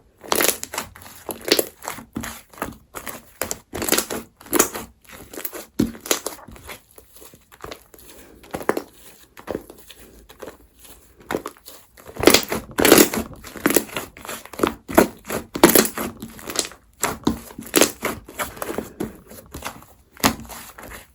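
Slime being squeezed and worked by hand, giving a run of irregular sticky pops and clicks, busiest and loudest a little past the middle.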